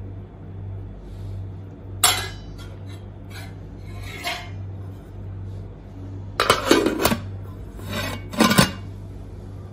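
A metal spatula clinking and scraping against an aluminium cooking pot as cooked rice is fluffed, then a few loud clanks as the pot's aluminium lid is set on, in two clusters in the second half.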